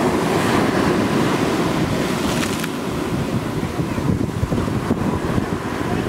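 Ocean surf washing steadily onto a sand beach, with wind buffeting the microphone.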